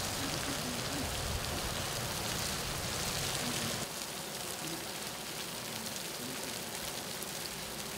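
Fly Geyser's jets of boiling-hot water spraying and splashing onto its mineral mound and terraces: a steady hiss. There is a deeper rumble in the first few seconds that drops away about four seconds in.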